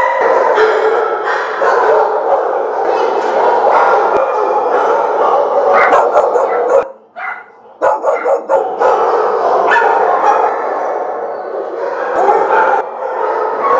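Many shelter dogs in kennel runs barking and yipping at once, a loud continuous overlapping din that briefly drops away about seven seconds in.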